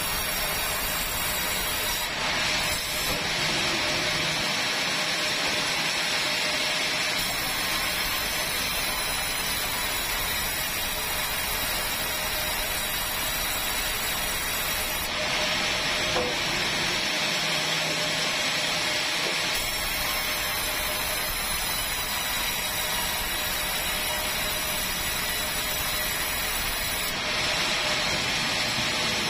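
Sawmill band saw running steadily as a timber is fed through it. Three times the hiss of the blade cutting the wood grows harsher and brighter for a few seconds.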